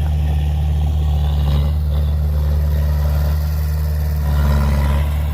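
Heavy diesel engine of earthmoving machinery running steadily with a low drone, getting a little louder about four seconds in.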